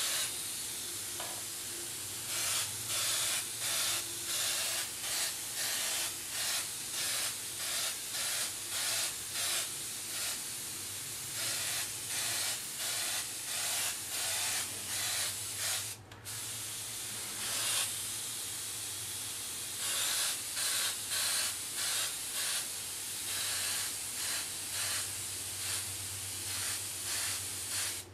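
Iwata Eclipse CS airbrush spraying paint at about 25 to 30 psi, a steady air hiss that swells in short bursts, about two a second, as the trigger is worked on and off. The air cuts out for a moment about halfway through, and a faint low hum runs underneath.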